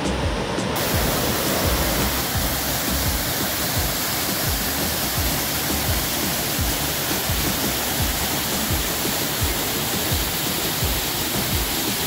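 Waterfall pouring down a rock face: a steady rushing of falling water.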